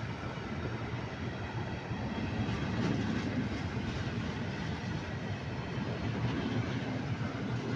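Freight train of open-top gondola wagons rolling past close by: a steady rumble of steel wheels on the rails.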